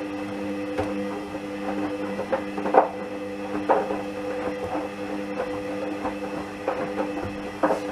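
Hoover A59 washing machine running a 30 °C wash: its motor hums steadily while the drum turns, with irregular clunks and knocks from inside, the loudest about three seconds in, again a second later and near the end.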